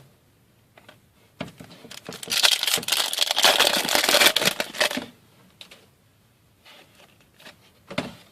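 A trading-card pack wrapper being torn open and crinkled: a loud crackling rustle lasting about three seconds, starting some two seconds in, with light handling clicks before and after.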